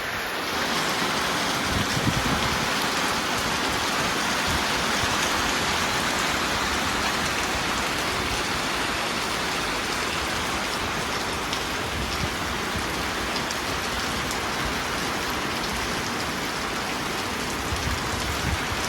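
Heavy rain falling steadily, a constant even hiss of drops.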